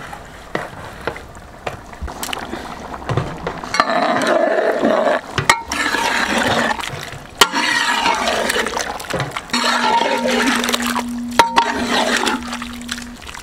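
Chunks of marinated tuna being dropped into a pot of boiling mango curry: splashing and bubbling of the gravy, louder from about four seconds in, with a few sharp clicks.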